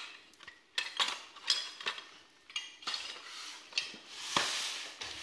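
Small hard plastic pieces clicking and clattering in a cardboard box as a child rummages through a box of math manipulatives, in a run of light knocks about once or twice a second, with a soft rustle near the end.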